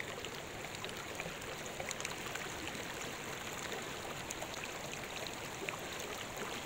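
Shallow river water running over a rocky bed, a steady rush of flowing water with many small splashes and trickles.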